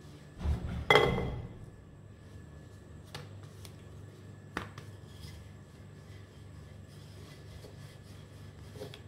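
Wooden rolling pin working dough on a stone worktop: a short rolling rumble, then a sharp knock about a second in, followed by a few faint taps as the dough is turned and rolled again.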